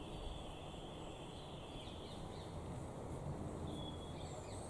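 Small birds singing faintly: a high, steady trill for about the first two seconds, then short high notes near the end, over a low background rumble.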